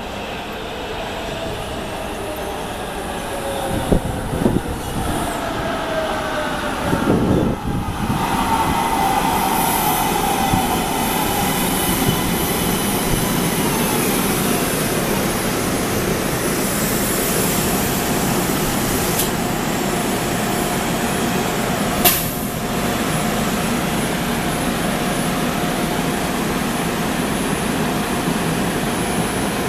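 MARTA rapid-transit train pulling into the station: steel wheels on the rails and a steady running noise, with an electric whine that falls in pitch as it slows. A sharp click about two-thirds of the way through, then a steady high whine over the train noise.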